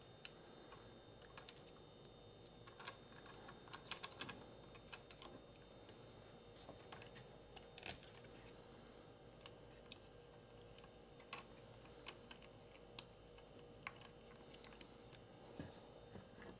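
Faint, scattered clicks and taps of small metal hardware being handled: crimped ring terminals, nuts and washers being fitted onto the threaded studs of a DC bus bar, with a small cluster of clicks about four seconds in.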